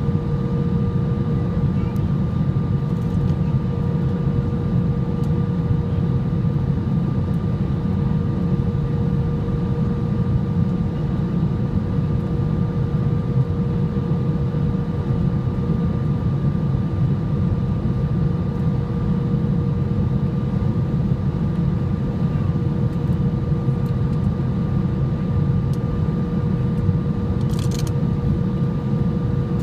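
Steady jet airliner cabin noise from a window seat over the wing of an Air India Boeing: engines and rushing air during the descent to land, with two steady hums running through it. A brief high click sounds near the end.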